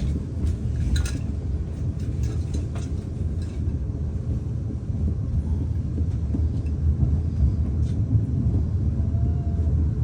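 Steady low rumble of a passenger train running into a terminus, heard from inside the carriage, with a few short clicks and knocks in the first few seconds.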